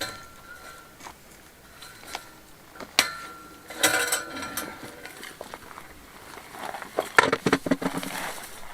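Metal wire fencing and poles clanking as they are pulled and shifted: a knock with a short metallic ring at the start, sharper clanks with a ringing tone about three to four seconds in, then a quick run of rattling knocks near the end.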